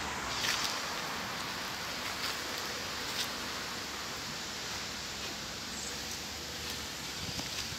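Steady outdoor background hiss, with a few soft taps in the first few seconds.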